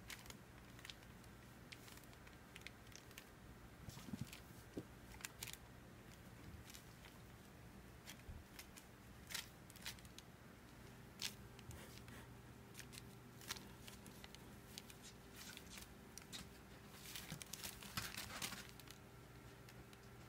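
Faint scattered rustling and scratching of young kittens' paws and claws on towels and fabric bedding as they play, with a denser burst of rustling near the end, over a low steady hum.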